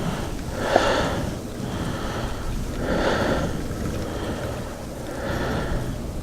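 A person breathing close to the microphone: three slow, airy breaths a couple of seconds apart, over a steady low rumble.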